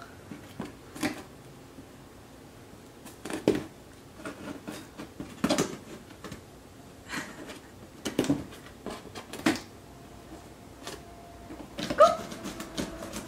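Irregular taps and scuffs on a cardboard box as a cat paws at a toy popping up through holes cut in the box's top. The taps are scattered, about a dozen, some single and some in quick little clusters.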